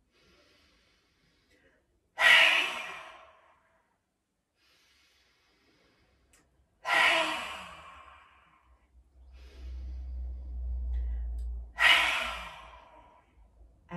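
Three lion's breaths: each is a quiet inhale through the nose followed by a forceful open-mouthed exhale with the tongue stuck out. The three exhales come about five seconds apart, and each starts loud and fades over a second or so.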